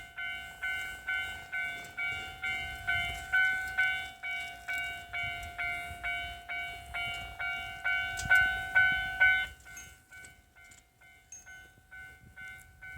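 Japanese level-crossing alarm ringing its rapid electronic bell about twice a second while a JR Kibi Line diesel train rumbles past. The bell stops about nine and a half seconds in, leaving only a faint ringing tone.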